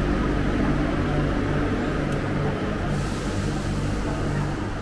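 Steady low hum and hiss of train-station machinery in a large indoor concourse, with a low tone that pulses on and off about every half second.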